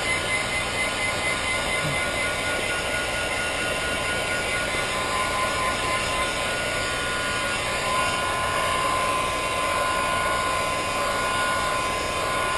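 Electric heat gun running steadily, blowing hot air over window tint film on a headlight lens cover to heat and set the film. A steady rush of air with a faint even whine.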